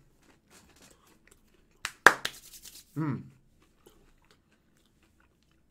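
Paper fast-food packaging being handled: a few faint clicks, then two sharp clicks and about a second of rustling and tearing. A short falling hum from a man follows.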